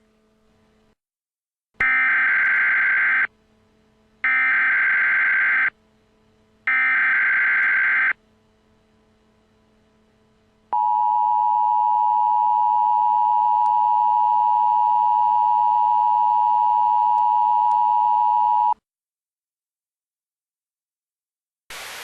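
Emergency Alert System tones: three bursts of SAME header data, each about a second and a half long, followed by the two-tone attention signal held steadily for about eight seconds.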